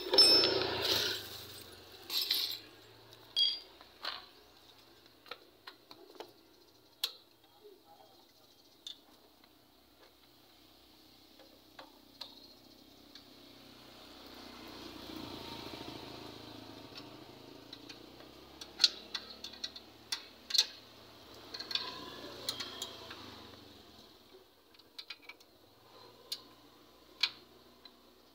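Scattered light clinks and taps of small hard objects being handled, with a louder rustling burst at the start and a soft swell of noise in the middle.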